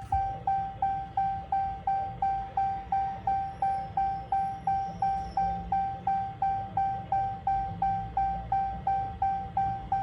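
Electronic warning chime beeping steadily, about three short ringing tones a second, each starting sharply and fading away, over a low steady hum.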